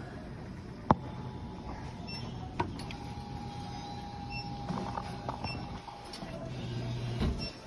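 Arcade claw machine at work as the claw grabs and lifts a plush toy. There are two sharp clicks, about a second in and again a couple of seconds later, and a steady motor whine for several seconds over a low hum that swells near the end.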